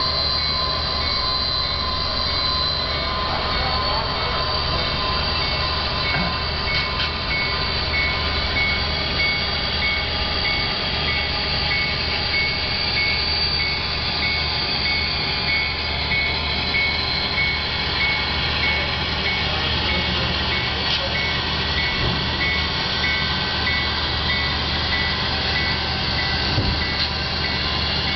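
HO scale model Amtrak passenger train running along the layout's track, a steady rolling hum and whir that stays even throughout.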